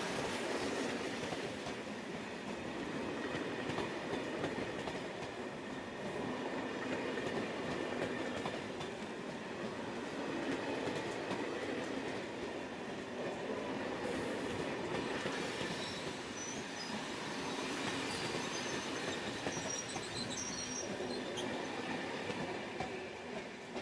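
Corail passenger coaches rolling past close by, a steady rumble of wheels on rail, with thin high squeals from the wheels about two-thirds of the way through.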